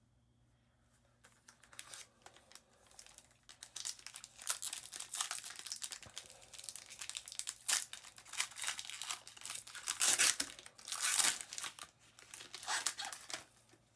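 Crinkling and tearing of a trading-card pack's foil wrapper as it is torn open and handled, a dense crackle that comes and goes, starting about a second and a half in and loudest near the end.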